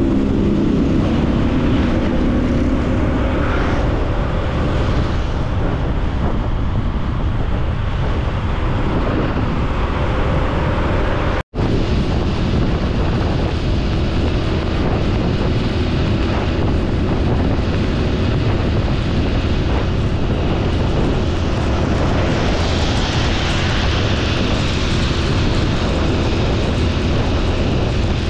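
Honda Super Cub C125's 125 cc single-cylinder engine running at a steady road speed under heavy wind rumble on the microphone. The sound drops out for an instant about a third of the way through.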